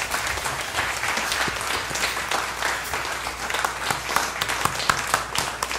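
Congregation applauding, many hands clapping at once at a steady level.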